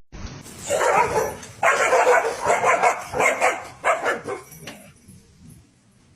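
A dog barking repeatedly, a quick series of loud barks over about four seconds that then stops.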